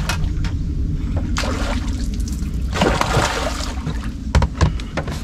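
Water splashing in two bursts over a steady low rumble: a hooked fish thrashing at the surface as it is reeled to the boat. A few light knocks come near the end.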